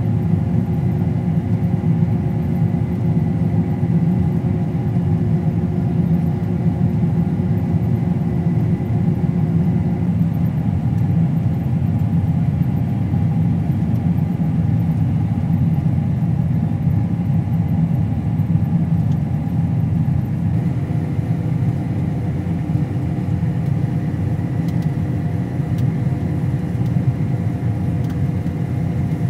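Combine harvester running steadily under load: a constant low drone with several steady tones and a faint high whine above it. One of the tones drops out about ten seconds in.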